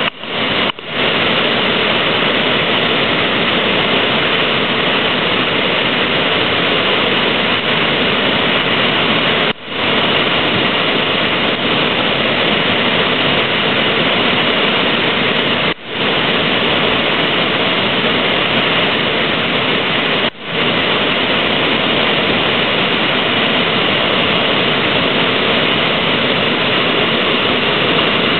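Steady loud rush of whitewater from a river standing wave, with brief dropouts about a second in and again near ten, sixteen and twenty seconds in.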